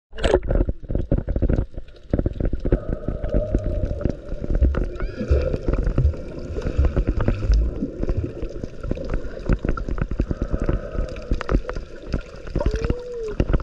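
Water gurgling and sloshing close to the microphone, with dense crackling clicks throughout and a few low thumps in the middle.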